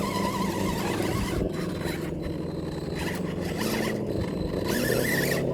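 Axial SCX10 RC crawler's electric motor and gearbox whining under load on a steep climb, the pitch shifting a little as it labours, with scraping and crunching in loose leaves.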